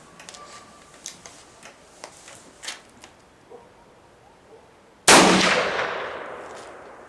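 A few light metallic clicks and knocks, then a single shot from a .357 Magnum Henry single-shot rifle about five seconds in, ringing out and fading over about two seconds.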